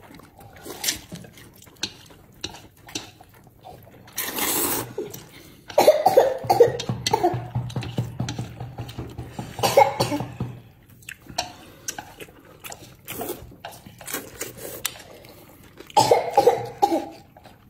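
A man slurping and chewing hand-pulled noodles: wet mouth clicks throughout, a long airy slurp about four seconds in, and louder slurping and chewing bursts around six, ten and sixteen seconds in.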